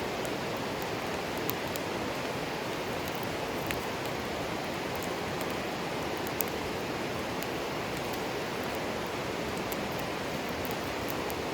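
River water flowing steadily, an even rushing noise, with light scattered ticks and crackles.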